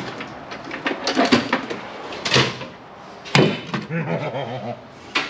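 Metal hand tools clattering and knocking in a steel tool-cabinet drawer as it is rummaged through, with several separate sharp knocks.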